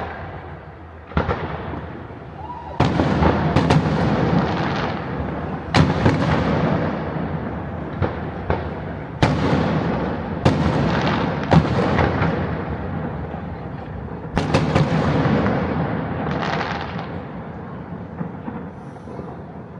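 Fireworks going off: a dozen or so sharp bangs at uneven intervals, some in quick pairs, each trailing off in crackle and echo, thinning out near the end.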